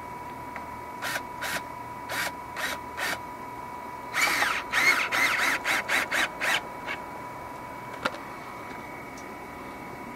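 Cordless drill driving screws into a water heater's metal mounting flange. It runs in short trigger bursts: a few brief pulses first, then a quicker run of bursts from about four seconds in, the motor pitch rising and falling. A single sharp click comes near eight seconds.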